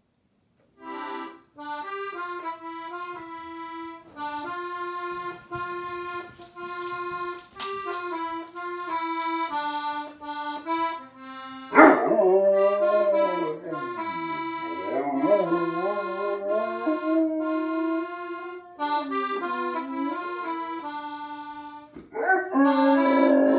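A slow melody on a free-reed instrument, held notes stepping up and down. About halfway in a dog starts howling along, its voice sliding down and back up over several seconds, and it howls loudly again near the end.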